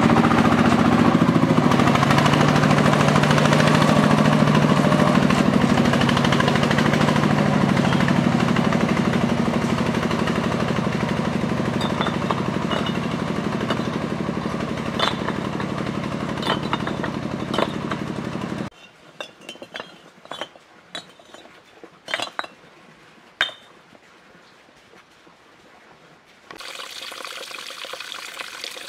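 Engine of the vehicle hauling the brick trailer running steadily and slowly fading as it moves off, with bricks clinking against each other near the end of it. It cuts off abruptly, leaving a few quieter brick clinks, and then water trickling starts near the end.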